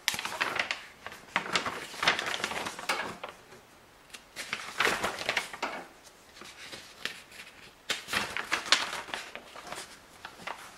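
Paper pages of a manual rustling and crinkling as they are turned and handled, in about four separate spells of crackling.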